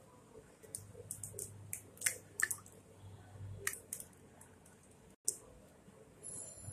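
Three chicken eggs being cracked one after another and dropped into a glass bowl: scattered faint clicks and taps of breaking shell.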